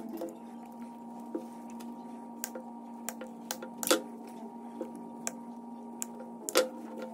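Scattered sharp clicks and knocks of hand tools and scrap metal parts handled on a wooden workbench, two of them louder, about four and six and a half seconds in. Under them runs a steady hum that stops shortly before the end.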